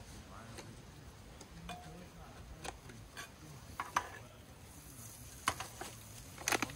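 Fat sizzling in a frying pan on a portable gas stove, with a utensil scraping and clicking against the pan. A few sharp knocks stand out, the loudest near the end.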